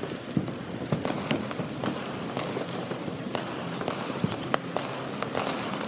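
Distant fireworks shells bursting in an irregular series of sharp reports and booms over a steady background of noise.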